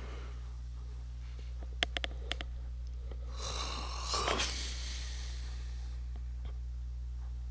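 A long breath into the microphone for about two and a half seconds near the middle, over a steady low electrical hum, with a few sharp keyboard clicks about two seconds in.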